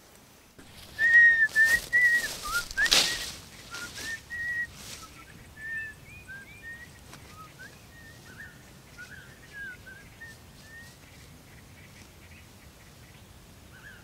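A quick run of short whistled chirps near one pitch, some gliding up or down, loud for the first few seconds and then fainter and sparser until they die away about eleven seconds in. A few crackling clicks come with the loud stretch.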